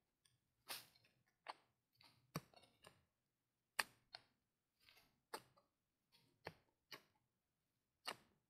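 Spade digging into loose fill soil: a string of irregular sharp knocks and scrapes, roughly one or two a second, the loudest about four seconds in.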